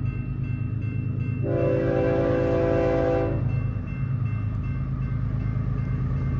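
Air horn of an approaching BNSF stack train's locomotive sounding one long chord blast of nearly two seconds, about a second and a half in, over a low steady rumble.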